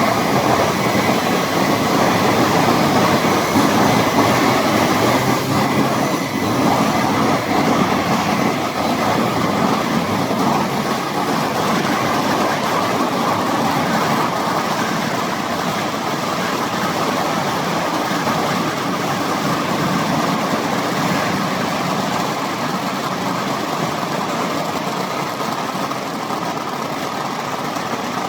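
Multiple band saw wood-cutting machine running, a loud, steady mechanical noise that eases slightly toward the end.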